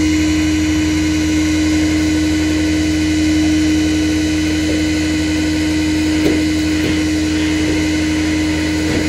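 A steady mechanical drone: a strong constant hum with fixed whining tones above it, holding level and pitch throughout.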